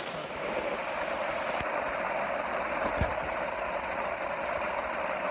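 Steady rain on tent fabric, heard from inside the tent as an even hiss, with a couple of faint knocks midway.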